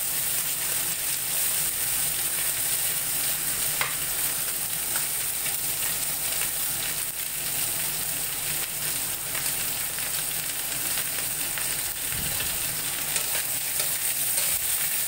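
Beef brisket chunks sizzling steadily in hot oil in a stainless steel wok as they brown, stirred now and then with a spatula that clicks and scrapes against the metal.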